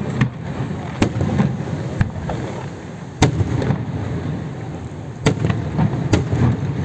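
Aerial fireworks going off: a string of sharp bangs, about one a second with the loudest about three seconds in, over a continuous low rumble and crackle.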